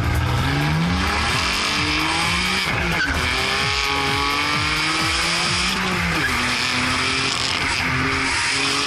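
BMW M3 sedan's 3-litre twin-turbo inline-six heard through its quad exhaust, accelerating hard. The engine note climbs, drops sharply about three seconds in and again about six seconds in as the car shifts up, and climbs again each time.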